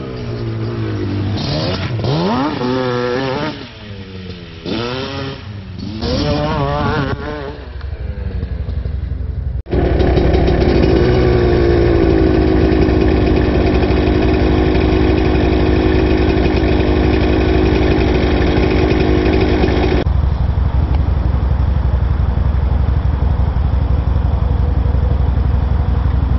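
Off-road quad and dirt-bike engines revving, rising and falling in pitch as the machines ride past on a dirt trail. After a sudden cut, a quad engine runs at steady high revs as it tries to climb a steep hill, and its tone drops about 20 seconds in.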